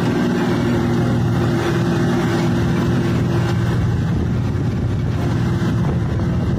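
A motor vehicle's engine running at a steady speed, a constant low hum under road noise.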